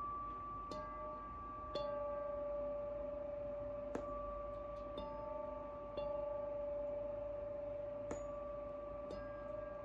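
A tuning fork struck with a felt mallet about seven times, each soft tap followed by a long, steady, pure ringing tone. Higher and lower tones overlap and keep sounding between strikes.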